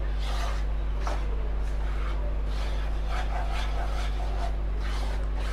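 Wooden spatula stirring and scraping atta roasting in ghee in a non-stick kadhai, with soft scrapes coming every half second or so. A steady low hum runs underneath.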